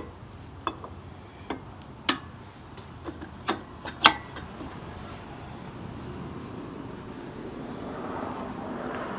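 Metal axle parts clinking and knocking as a brake drum is worked onto a go-kart-style rear axle over its key, about a dozen sharp clinks in the first few seconds. Then a steady noise that slowly grows toward the end.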